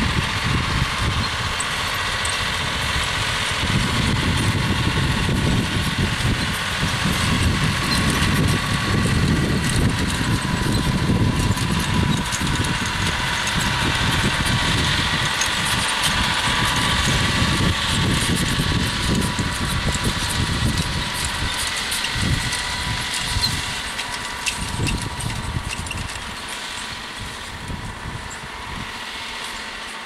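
John Deere 6155R tractor's six-cylinder diesel engine running steadily under the load of pulling a four-furrow reversible mouldboard plough and furrow press through pasture. It passes close, then fades as it pulls away over the last few seconds.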